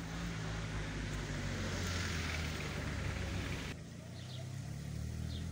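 A steady low hum with a rushing hiss over it. The hiss cuts off suddenly about two-thirds of the way through. A few faint bird chirps follow.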